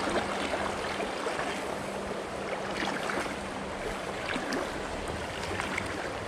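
River water running steadily over a shallow stony stretch, a continuous even hiss with faint small splashes and ticks.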